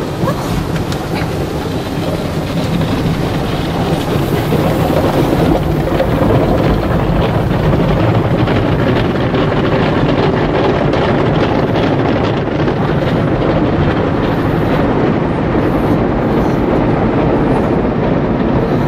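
Automatic car wash working over the car, heard from inside the cabin: a loud, steady rush and rumble of water and foam hitting the body and windows, which builds over the first few seconds.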